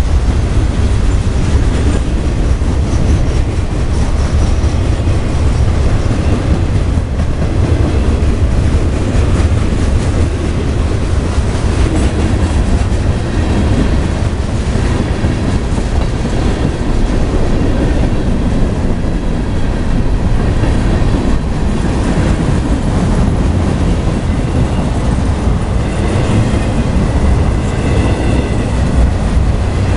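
Freight train cars rolling past at speed: a steady, loud rumble of steel wheels on the rails with clattering over the rail joints.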